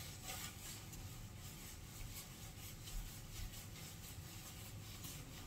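Sponge scrubbing the stainless-steel front of a dishwasher, a faint run of repeated rubbing strokes.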